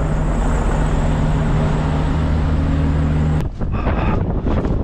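Engine idling steadily with a constant hum, cut off abruptly about three and a half seconds in. Wind buffeting the microphone follows.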